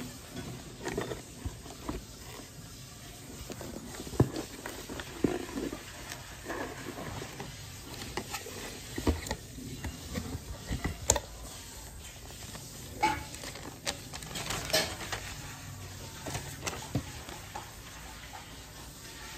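Hands opening a cardboard box and handling a paper packing slip: irregular rustles, scrapes and sharp taps of cardboard and paper, with a few louder knocks along the way.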